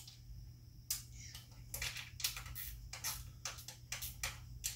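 Irregular light clicks and taps, about three a second, from hands and tools working on a dirt bike's front forks and triple clamps.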